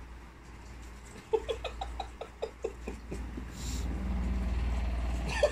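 A person giggling in a quick run of short, high-pitched breaths that starts about a second in, over a low steady hum.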